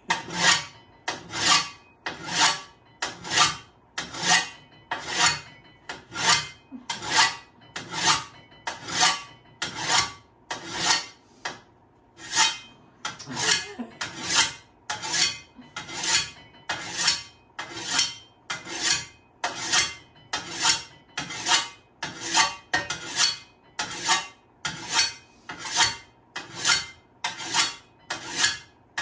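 Hand file sharpening the edge of a steel shovel blade: steady, even rasping strokes, about one and a half a second.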